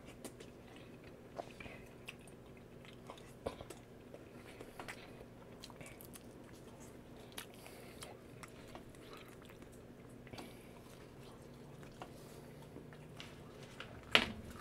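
A person chewing a mouthful of fried lobster and fried rice, with soft scattered mouth clicks and smacks, and one louder smack near the end.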